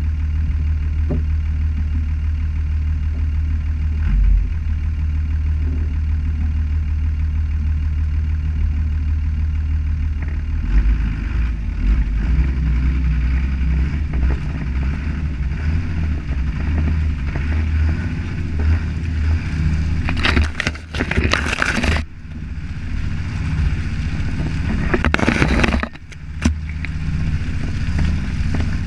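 Toyota HJ61 Land Cruiser's 12H-T turbo-diesel straight-six running at low revs, a steady deep rumble heard through a body-mounted camera. After about ten seconds the engine note becomes uneven as the truck works along a muddy track, and twice near the end bushes brushing along the side give short loud scraping rushes.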